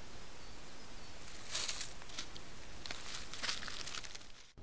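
Amur tiger walking past a trail camera over dry leaf litter: two short spells of rustling steps over the camera's steady hiss. The sound cuts off suddenly near the end.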